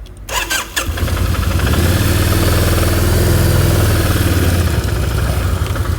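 Yamaha Royal Star's V4 engine pulling at a steady throttle while riding, held by the throttle lock. It comes up about a second in and then runs evenly, over a steady rushing hiss.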